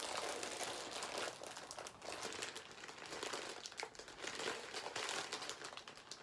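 Dark plastic shipping bag crinkling and crackling as it is gripped, pulled and twisted open by hand, a dense run of small crackles that eases off near the end.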